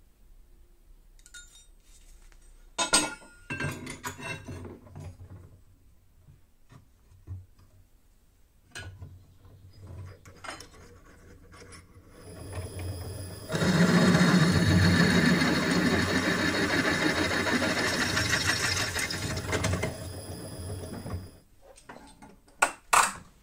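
Bench drill press motor winds up about halfway through, runs steadily for about eight seconds, then winds down. Before it there is clatter and clicks of steel parts being handled, and near the end two sharp metallic clicks.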